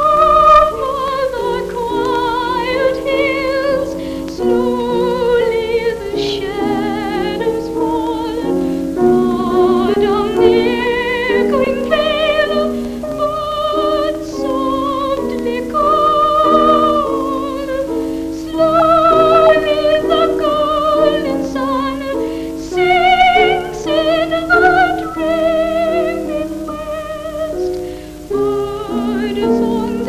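A boy soprano singing a slow ballad with a wavering vibrato, accompanied by a grand piano.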